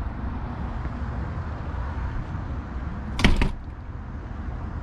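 Steady low outdoor rumble of wind and street noise, broken about three seconds in by one short, loud burst of noise.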